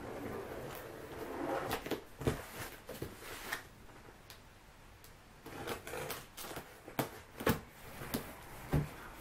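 Packing tape being peeled and torn off a cardboard box, with the cardboard handled and knocked. The peeling comes as long noisy pulls in the first few seconds, then sharp taps and knocks follow as the flaps are worked loose.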